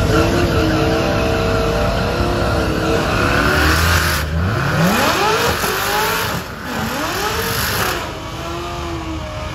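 Cars doing burnouts at the drag start line: tyres squealing in a wavering whine while the engines rev, with pitch rising sharply about four to five seconds in.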